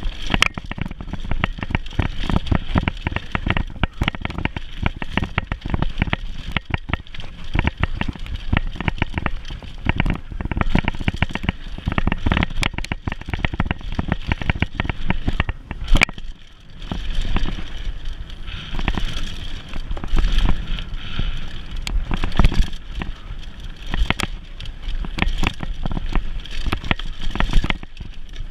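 Mountain bike ridden fast over a dirt singletrack: many quick rattles and knocks from the chain and frame over bumps, over a steady low rumble of tyres on dirt.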